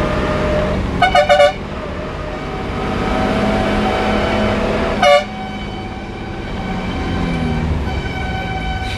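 Vehicle horn, most likely the bus's own, giving four quick toots about a second in and one short toot about five seconds later, over the steady drone of the bus engine and road noise.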